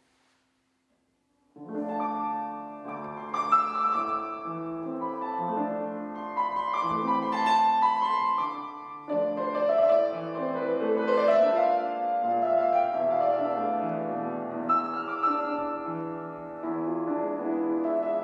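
Grand piano playing an accompaniment passage alone, with chords and a moving melody, starting about a second and a half in after a brief silence.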